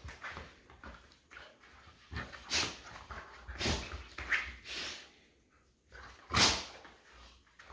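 An American Akita puppy and an old golden retriever play-fighting, with irregular short bursts of growling and scuffling; the loudest comes about six and a half seconds in.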